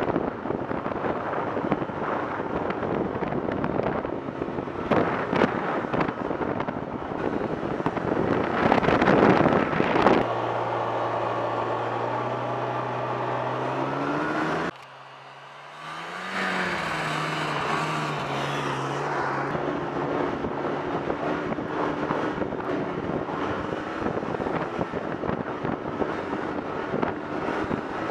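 Snowmobile riding at speed: a dense engine and riding noise. About a third of the way in, it changes abruptly to the engine idling steadily. After a brief quieter gap the engine revs up and down, and the riding noise returns.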